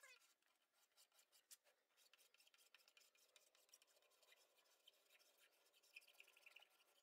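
Faint scraping of a hand file drawn down the edge of Formica laminate in many short strokes, flattening the lippage where the laminate meets the edge.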